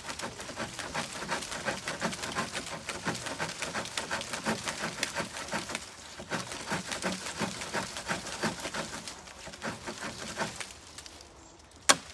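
A straight tracker knife sawing through a green sycamore branch in quick, even back-and-forth strokes. The sawing stops about ten seconds in, and a single sharp crack comes near the end.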